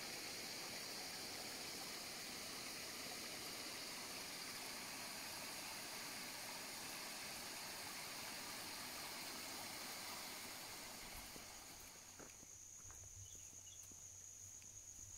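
Steady rushing of water in a shallow, rocky mountain stream, with a high insect whine over it. About twelve seconds in the water gives way to quieter forest ambience: a steady high-pitched insect drone and a few faint footsteps on a dirt path.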